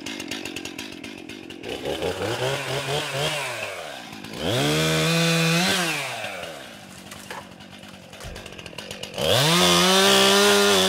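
Two-stroke chainsaw idling, then revved up to full throttle three times, each rise holding for one to two seconds before falling back to idle, the last and highest near the end, as it cuts through small trees.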